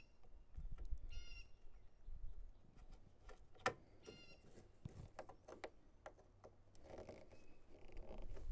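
Small clicks and knocks of a screwdriver driving screws into a mower's plastic switch panel, the sharpest about halfway through, with a bird calling briefly twice, once about a second in and once more faintly about four seconds in.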